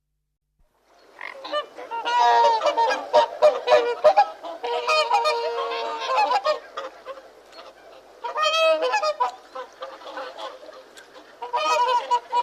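A flock of birds calling loudly over one another in bouts, starting about a second in, with two quieter gaps before the calling picks up again near the end.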